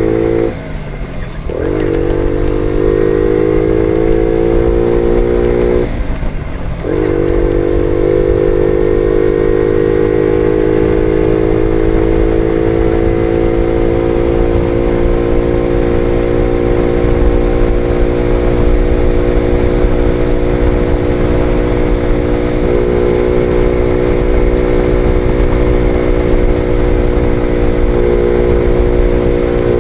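Small-capacity Jawa Betka 50 moped engine running under way, heard from on board. Its note dips sharply twice, about a second in and again around six seconds in, climbs back each time, and then settles to a steady cruising pitch.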